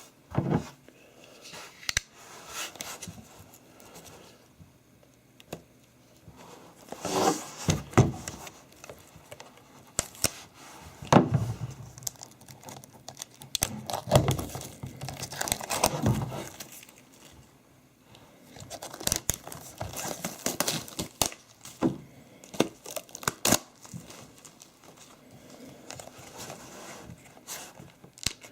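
Packaging on a boxed DigiBook being torn and crumpled by hand, crinkling in irregular bursts with short quieter pauses between them.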